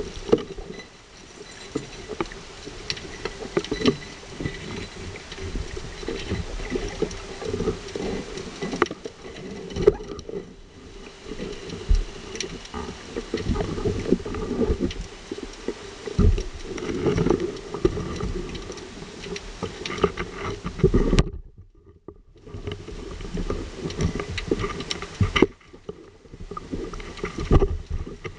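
Underwater sound picked up through a camera's waterproof housing: a busy rushing and sloshing of water with many small clicks and knocks. It drops away sharply twice near the end.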